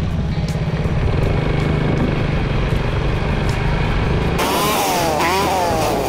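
Motorcycle engine running steadily while riding. About four seconds in the sound changes abruptly to a louder, hissing rush, with the engine note repeatedly sliding down in pitch and jumping back up.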